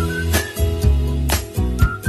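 Background music with a steady beat of about one hit a second, a bass line and short high melody notes.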